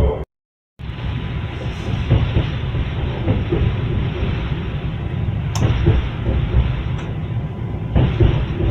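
Train wheels rumbling and knocking over the rails of a moving train, a steady clatter with irregular knocks. The sound cuts out completely for about half a second just after the start.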